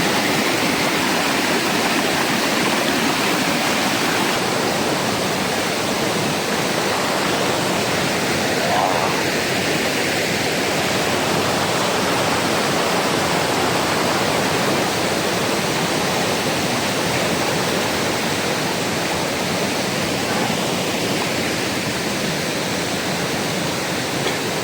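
Fast-flowing river water rushing over rocks: a loud, steady, even rush.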